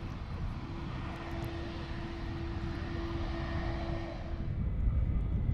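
Jet airliner departing: a steady rushing engine noise with a held tone, the high hiss dying away near the end as the aircraft moves off.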